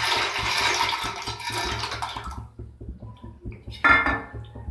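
Dry macaroni pouring from a steel bowl into a steel pot of water, a dense rattle that stops about halfway through. A short metallic clink follows near the end.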